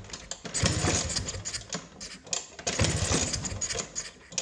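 Vespa P200E's single-cylinder two-stroke engine being kicked over again and again, three strokes of about a second each, turning over without firing: a no-start even though it has spark and fuel.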